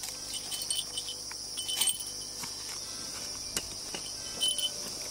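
Insects buzzing steadily in a high-pitched chorus. Scattered light clicks and rustles sound over it, the loudest about two seconds in.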